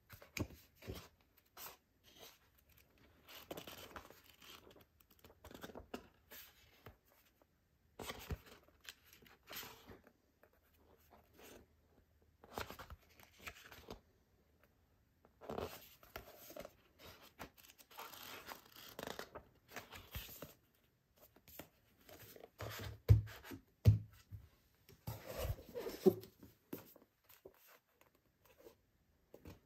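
Paperback manga volume handled in the hands: pages riffled and turned, with the cover and paper rustling in short, irregular spells. Two dull knocks about three quarters of the way through are the loudest sounds.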